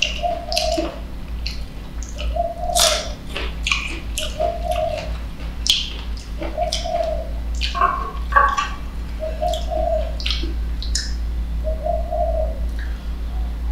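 Wet, close-up eating sounds: sharp clicks and smacks of mouth and fingers. Behind them, a bird's short low call repeats about every two seconds.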